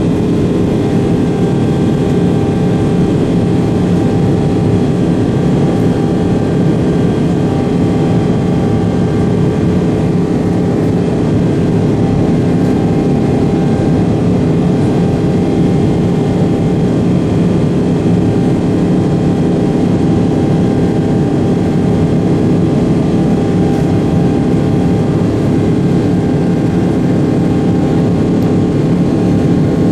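Boeing 777-300ER's GE90-115B turbofan engines at climb power, heard inside the cabin: a loud, steady drone with several steady tones running through it.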